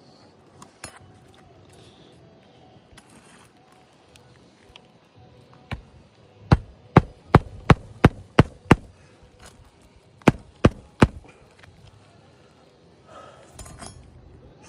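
Hammer driving a roofing nail through an asphalt shingle to set it flush: a run of about seven sharp blows, roughly three a second, then after a pause three more. A brief rustle of shingle follows near the end.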